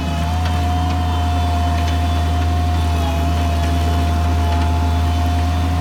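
Bobcat MT52 walk-behind compact track loader's diesel engine running at a steady speed, a deep hum with a steady high-pitched whine over it.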